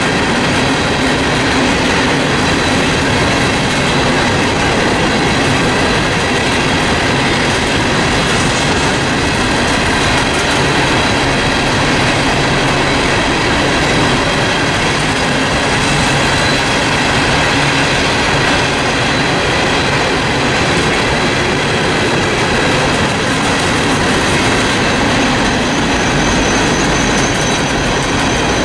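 Herzog ballast hopper cars of a freight train rolling past: a steady, loud rumble and clatter of steel wheels on rail, with several high squealing tones held throughout.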